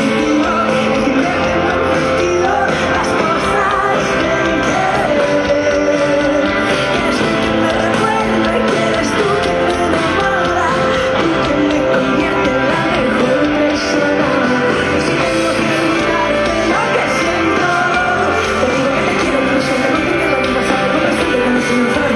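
Live pop band playing through a large outdoor PA system, heard from within the audience.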